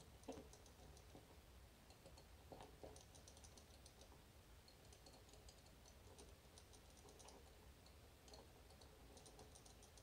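Faint, scattered tiny clicks and rattles from the magnetic tumblers of a Miwa EC magnetic lock as a magnet pick probes them under light tension, picked up and amplified through a small amp. In this lock a loose rattle means the tumbler is not yet binding, and a click marks a magnet setting.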